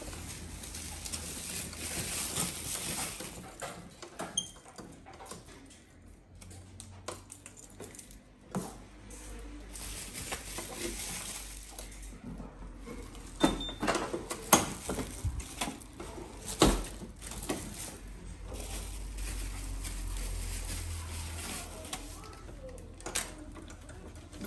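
Hand work on a scooter's handlebar: plastic wrap rustling, with scattered clicks and knocks of tools and parts, and a cluster of louder knocks a little past halfway.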